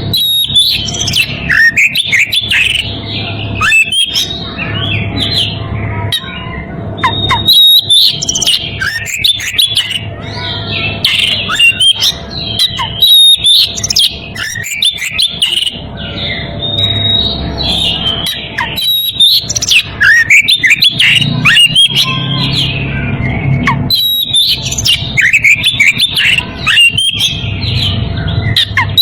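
Oriental magpie-robin (kacer) singing loudly and almost without pause: a rapid run of sweeping whistles and chirps. It is the song of a bird in breeding condition calling out a rival.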